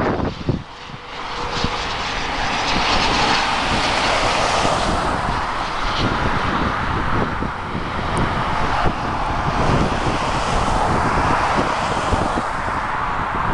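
Cessna Citation CJ4's twin Williams FJ44 turbofans on landing approach: a steady jet rush that builds about a second in and holds as the jet passes and lands, with wind buffeting the microphone.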